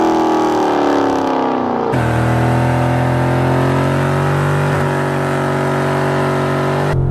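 2013 Dodge Charger SRT8's 6.4-litre HEMI V8 held at high revs during a burnout, the rear tyres spinning. The engine note sags slowly, and the sound changes abruptly about two seconds in and again near the end.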